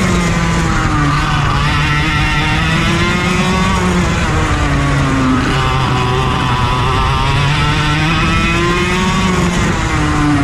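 Racing kart engine running hard, its pitch climbing and dropping a few times as it accelerates and backs off through the corners.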